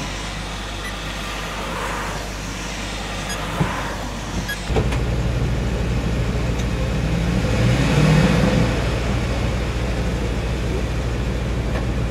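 Car driving on a rain-soaked road, heard from inside the cabin: steady road and tyre noise with a low hum. About four and a half seconds in the sound changes suddenly to a louder, steadier low vehicle hum.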